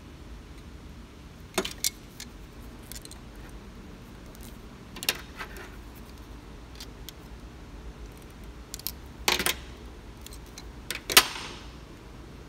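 Steel coil springs and pliers clinking against each other and the workbench as the springs are handled and set down: a few separate sharp metal clinks and a short jangle, the loudest near the end with a brief ring.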